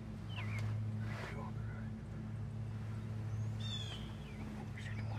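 Wild turkeys close by giving scattered short, soft calls, with one falling call a little past the middle, over a steady low hum.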